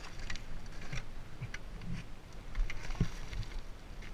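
Scattered crunches, clicks and knocks of boots on loose rock and of a fallen Gas Gas dirt bike being handled, with the engine off.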